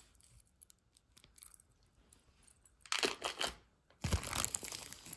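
A few faint clicks of a metal brooch being handled, then a clear plastic zip bag crinkling in two bursts, about three and four seconds in, as a hand reaches into it.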